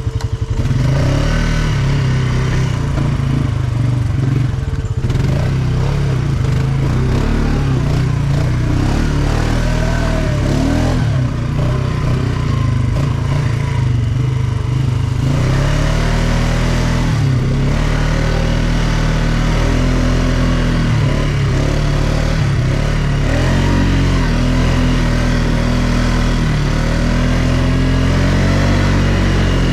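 ATV engine running steadily while riding, its pitch rising and falling a little as the throttle changes.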